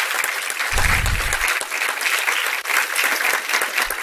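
Audience applauding steadily, many hands clapping at once, with a brief low rumble about a second in.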